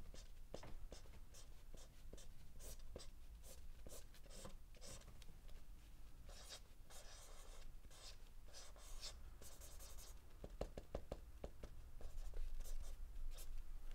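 Felt-tip marker drawing on paper: many short, quick scratching strokes, with a few longer strokes about halfway through.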